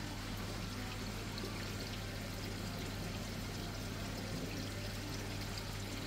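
Aquarium water circulation: water pouring and splashing steadily into the tank, over a steady low hum.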